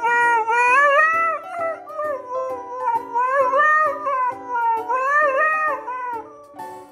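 A dog howling along to music in long, wavering howls that rise and fall in pitch, over background music with a steady beat.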